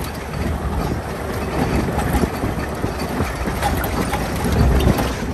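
Open-top Jeep driving along a rough dirt trail: steady low rumble of the engine and tyres on the dirt.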